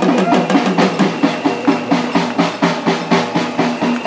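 Drums beaten in a fast, even rhythm, about three beats a second.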